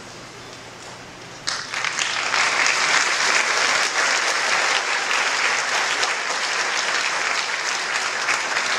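Audience applauding, breaking out suddenly about a second and a half in and going on steadily.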